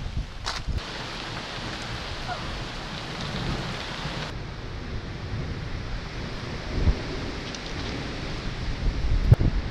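Thunderstorm: steady rain with low rumbling thunder, and gusts of wind buffeting the microphone a few times, strongest near the end.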